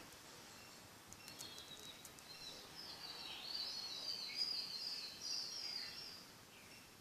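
A small bird twittering faintly in the background: a quick run of high, stepping chirps for a few seconds in the middle, after a few faint clicks about a second in.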